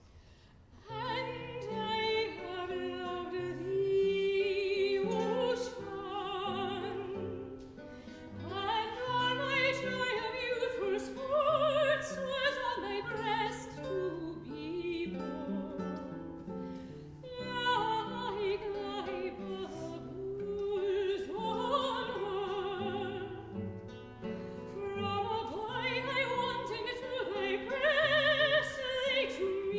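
Classical soprano singing an art song with vibrato to baroque guitar accompaniment, starting about a second in.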